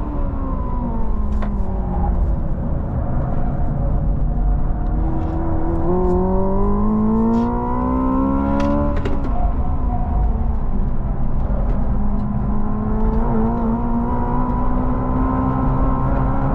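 Hyundai Ioniq 5 N electric drive heard from inside the cabin at track speed, over a heavy low tyre and road rumble. Its engine-like tone falls under braking, then rises under acceleration. About nine seconds in it drops abruptly, like a shift, and climbs again.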